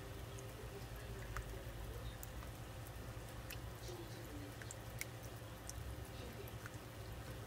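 Three-toed box turtle eating water-softened frozen turtle food: faint, scattered wet clicks and squishes at irregular times over a steady low hum.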